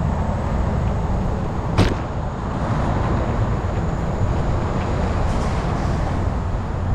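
Mountain bike riding over a gravel and dirt trail: tyre rumble and wind buffeting the camera microphone, with one sharp click a little under two seconds in.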